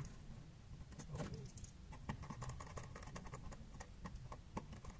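Faint, irregular small clicks and taps of hands handling wires and the plastic casing of an LED emergency power pack, fitting the driver's output wires into its terminal block.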